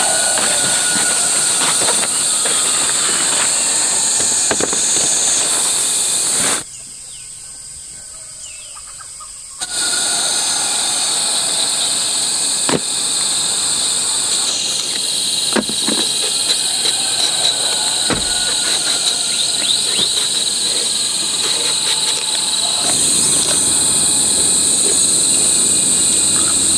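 Steady, loud chorus of insects, with a few sharp clicks scattered through it; it drops away for about three seconds roughly a quarter of the way in.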